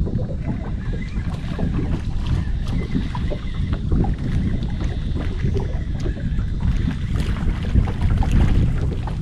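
Wind buffeting the microphone and small waves slapping against a small boat's hull, with a splash near the end from a hooked redfish thrashing at the surface.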